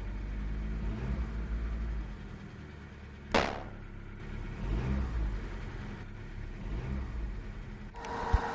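Car engine running and revving, rising and falling in level. A single sharp knock comes about three seconds in, and a brighter sound with a steady tone joins near the end.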